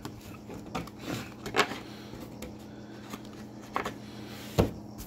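Foil trading-card packs being handled on a tabletop: a few sharp taps and light rustling, over a steady low hum.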